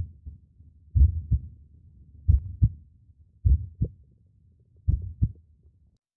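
Heartbeat sound effect: low double thumps, lub-dub, about one pair every 1.3 seconds, four pairs in all, stopping a little after five seconds in.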